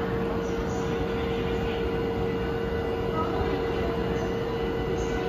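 Steady hum of a JR East 651 series electric train standing idle at a station platform, with a constant droning tone over even background noise.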